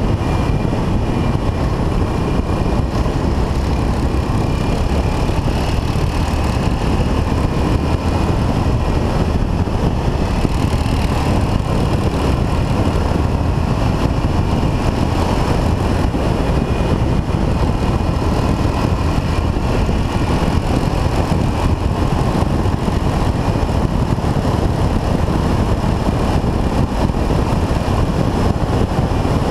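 1979 Yamaha XT500's air-cooled single-cylinder four-stroke engine running steadily under way, at an even level throughout.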